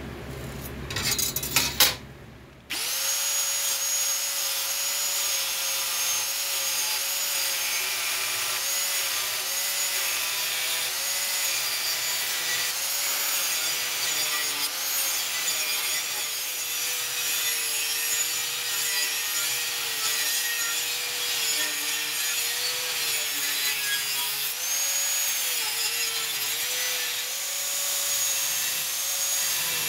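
Brief scratching and handling noises, then an angle grinder with a cut-off disc starts about three seconds in and runs steadily through a metal sheet. Its motor pitch dips again and again as the disc bites under load.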